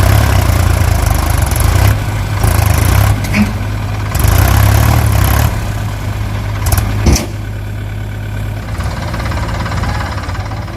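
Heavy diesel engine of a JCB 3DX backhoe loader working, loud for the first five seconds or so, then easing to a lower level. A sharp knock comes about seven seconds in.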